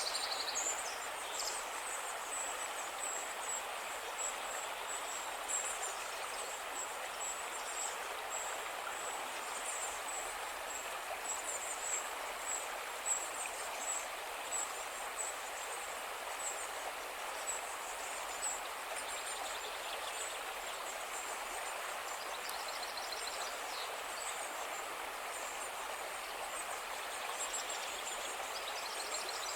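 Steady outdoor ambience: an even rushing noise like running water, with faint high chirps repeating throughout.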